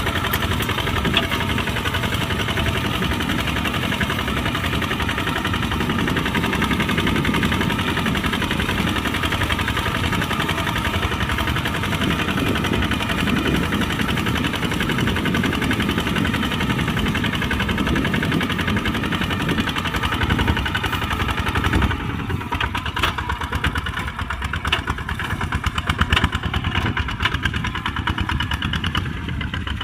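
Kubota RT140 single-cylinder diesel engine running steadily with a fast, even knocking beat while the tractor plows mud. About three quarters of the way through the sound thins and turns more uneven.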